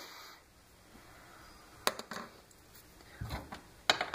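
Wire coat hangers handled and set down on a wooden workbench: one sharp click about two seconds in, then a soft knock and a few quick clicks near the end, over quiet room tone.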